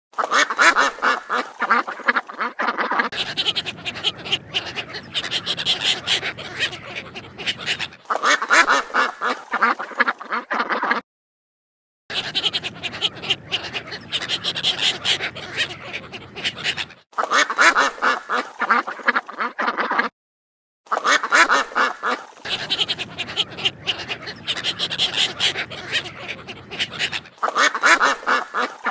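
A flock of ducks quacking rapidly and continuously, in a recording that repeats itself in loops, with two brief dead-silent breaks, about eleven and twenty seconds in, where clips are joined.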